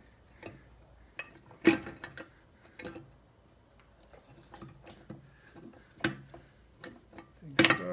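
Honda B-series transmission case being rocked and worked down by hand over the gearshafts onto the clutch housing: scattered light metal clicks and clunks, with sharper knocks about two seconds in, about six seconds in and near the end.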